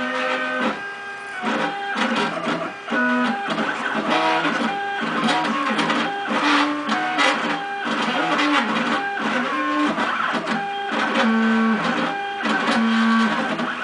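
Stepper motors of a CNC router driving its axes, giving pitched whining tones that jump between notes and slide down and back up as the axes slow and speed up.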